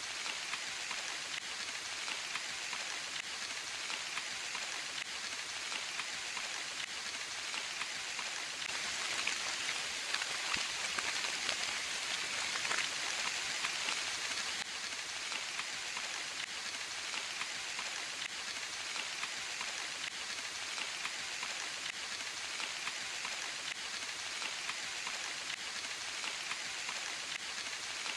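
Steady rain falling in a forest, a dense patter of drops that swells a little heavier for a few seconds in the middle.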